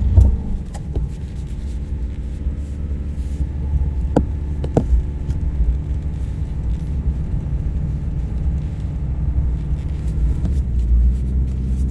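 Subaru Baja's flat-four engine pulling steadily under load as the all-wheel-drive truck climbs a snow-covered driveway through heavy wet snow, with a deep rumble underneath. Two short knocks come about four seconds in.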